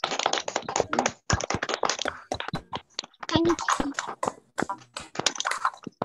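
Several children clapping over a video call, many quick, irregular claps overlapping, with voices mixed in.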